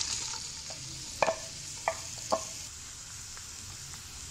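Sliced onions sizzling in hot oil in a karahi just after being tipped in, the sizzle dying down as the oil cools around them. Three sharp knocks come between one and two and a half seconds in.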